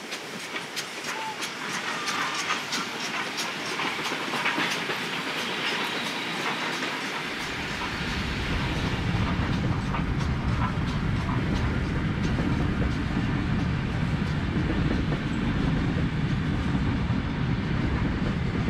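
Steam locomotive D3 639 working a passenger train with regular sharp exhaust beats as it approaches. About seven seconds in the sound changes abruptly to a heavy low rumble and wheel clatter as the carriages roll close by.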